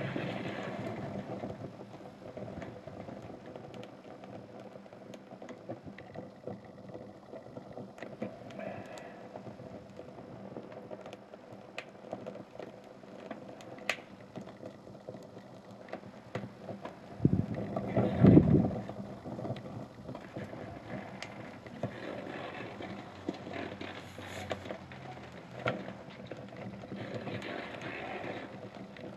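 Burning sneakers crackling, with scattered sharp pops over a steady rushing noise. A louder low rush swells up for a couple of seconds about two thirds of the way through.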